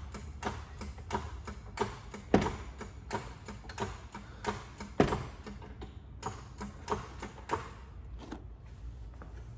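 Hydraulic floor jack being pumped to raise the engine on its sump block: rhythmic clicking about two to three times a second, with two louder clunks about two and a half and five seconds in, stopping near the end.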